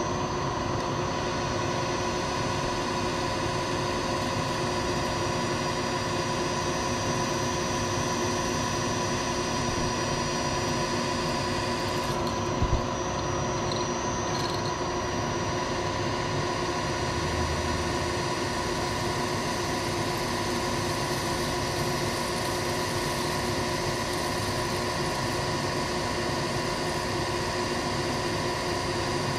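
Milling machine spindle running steadily, a whine of several steady tones, while a twist drill feeds into an aluminum cylinder. One short click about twelve seconds in.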